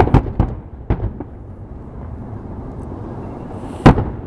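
Fireworks going off: a quick cluster of sharp bangs in the first second, then a steady low rumble of further bursts, and one very loud bang near the end.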